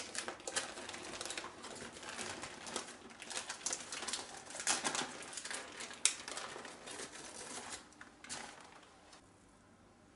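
Baking parchment paper being slowly peeled off the top of a baked sponge cake, crackling and rustling in a run of small crinkles that dies away about nine seconds in.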